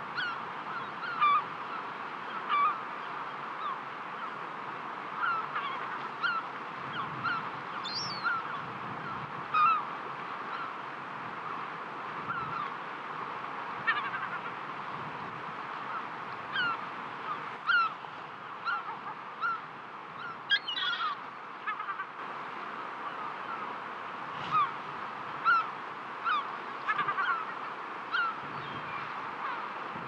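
Birds give many short, sharp calls, one or two a second, sometimes in quick clusters, over the steady wash of sea surf on a rocky shore.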